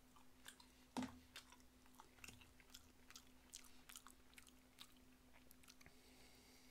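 Close-up mouth sounds of biting and chewing sauce-glazed fried pollack (kodari gangjeong): soft wet clicks and light crunches, with a sharper knock about a second in. A faint steady hum runs underneath.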